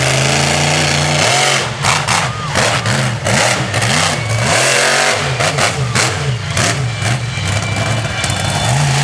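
Monster truck engine running hard and revving up and down repeatedly as the truck drives over a car, with a cluster of sharp crunching impacts a couple of seconds in.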